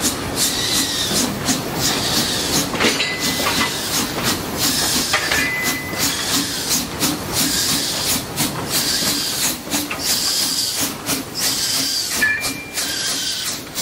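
JZ class 25 0-6-0 narrow-gauge steam locomotive moving slowly with a rake of steel tipper wagons: steam hissing from around the cylinders, with irregular clanks and knocks from the wagons and running gear. Short high squeals sound three times.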